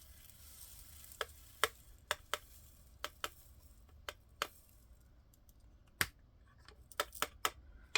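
About a dozen sharp, irregularly spaced clicks and taps of small plastic storage containers being handled, opened and closed.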